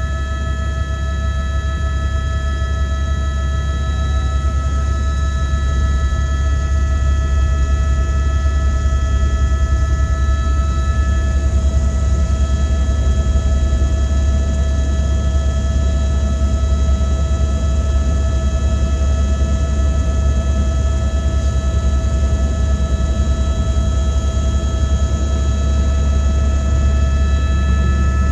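Helicopter running steadily: a loud, low rotor drone with a fast flutter, under several steady high-pitched turbine and gearbox whines.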